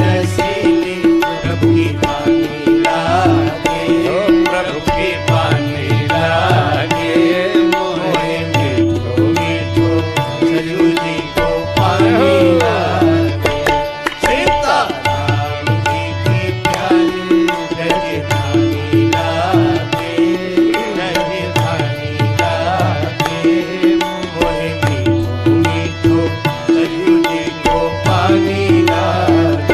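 Hindi devotional bhajan music with a steady, repeating drum rhythm under a melody.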